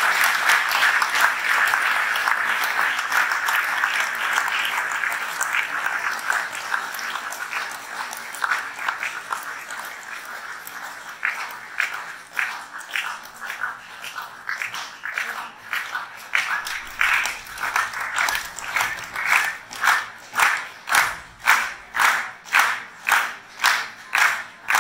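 Audience applause that dies away over several seconds, then turns into rhythmic clapping in unison, about one and a half to two claps a second, getting louder toward the end.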